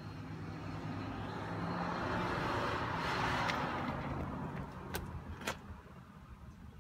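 A road vehicle passing by outside, heard from inside a car: it swells up, is loudest about halfway through, and fades away. A low steady hum runs underneath, and two sharp clicks come near the end.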